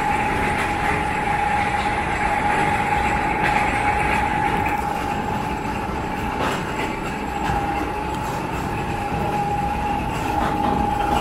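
A train passing: a steady rumble with a high, unchanging whine held throughout and a few faint clicks.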